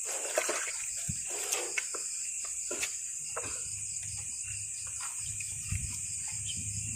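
Night insects, crickets, trilling steadily, with scattered clicks and knocks in the first few seconds; a low droning comes in about three seconds in.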